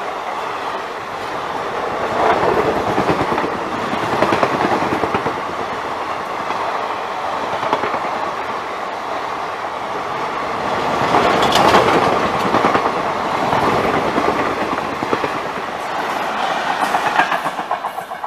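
Blue ICF passenger coaches of an Indian Railways express passing at speed close by: a steady rush and rumble with rapid wheel clatter over the rail joints, swelling louder several times, with sharp clacks about two-thirds of the way through and near the end.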